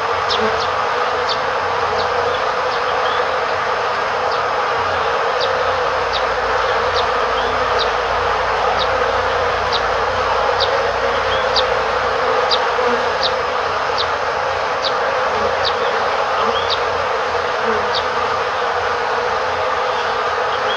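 A swarm of honeybees buzzes steadily at a hive entrance, a dense, even drone. Short high chirps from a bird repeat roughly once a second above it.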